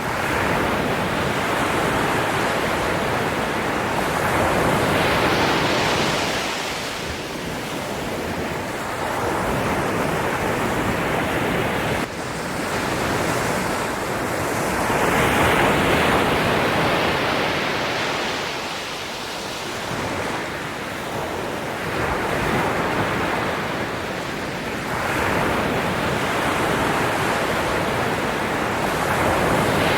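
Ocean waves washing in and out: a continuous rush of surf that swells and recedes every few seconds, with a sudden small dip about twelve seconds in.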